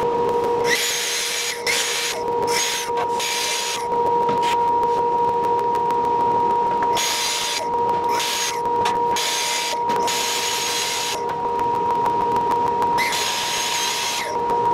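Festool plunge-cut track saw running along its guide rail and cutting a sheet panel in several stop-start bursts of cutting noise, over a steady hum.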